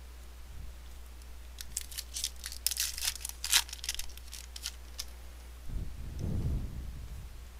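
Wrapper of a 2013 Bowman baseball card retail pack torn open and crinkled by hand: a run of sharp crackles lasting about three seconds. A low, muffled handling sound follows near the end.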